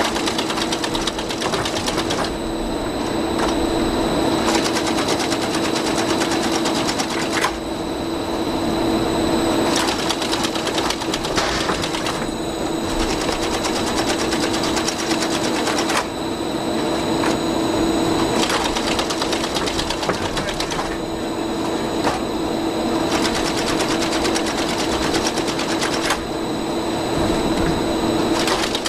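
Mobile filter press machinery running while the press is opened and emptied: a steady motor hum with a fast, even mechanical clatter. The sound shifts every couple of seconds, with a few sudden jolts, as the plates are moved apart.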